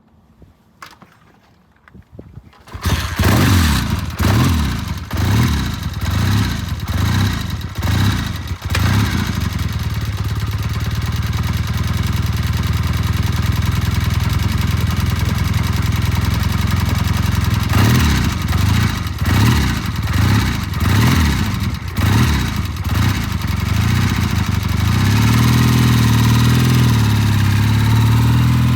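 Vintage British twin-carburettor motorcycle engine on a cold start: it catches about three seconds in, is blipped up and down repeatedly, settles to a steadier run, is blipped again, and near the end its note rises and holds.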